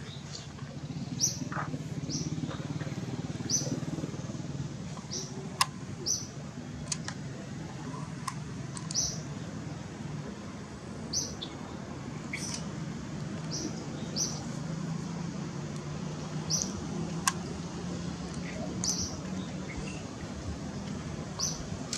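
A bird repeating a short high chirp about once a second, over a low steady hum, with a few faint clicks.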